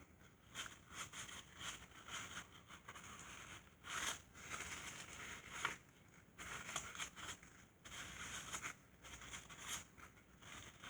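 Irregular rustling and scraping from hands handling parts and materials, in short bursts every second or so, louder around the middle.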